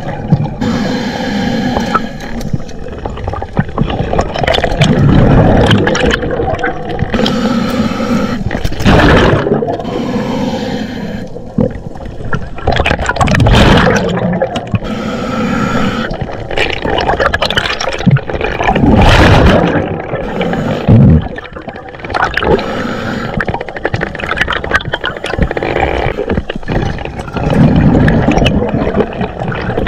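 Diver breathing underwater through a scuba regulator: exhaled bubbles rumble and gurgle in surges every few seconds, with hiss between them. Occasional sharp knocks and scrapes come from the speargun and the fish being handled.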